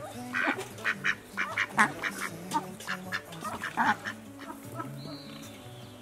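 Ducks quacking in quick short bursts over background music with a stepping low melody; the quacking thins out after about four seconds.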